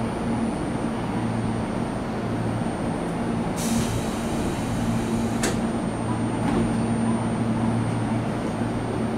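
Tobu Tojo Line electric train standing at the platform, its onboard equipment humming steadily. About three and a half seconds in there is a short hiss of air, and at about five and a half seconds a sharp click, as the doors close for departure.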